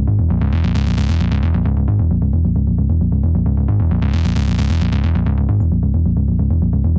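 Synthesizer bass from the Sylenth1 software synth playing a loud, pulsing repeated pattern. It turns bright and buzzy twice, about a second in and again around four seconds in.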